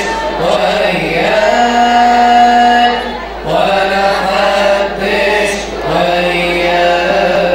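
Slow chanted church hymn sung in long held notes, in phrases of about three seconds with short breaths between them.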